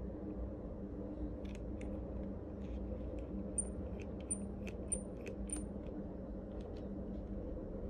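Spring-loaded cut-off lever on an antique powder flask's brass adjustable measuring nozzle being worked by hand. It gives a string of small sharp metal clicks over a few seconds, four of them with a brief high ring.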